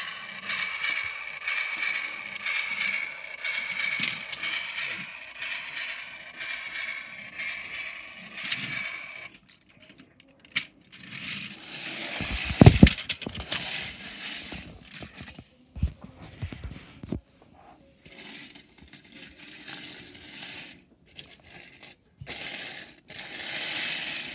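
A battery toy locomotive's motor and gears whir with a steady high whine, then stop about nine seconds in. After that comes the clatter of the plastic toy being handled on a tiled floor, with a loud knock a little past halfway and scattered clicks. A short whir returns near the end.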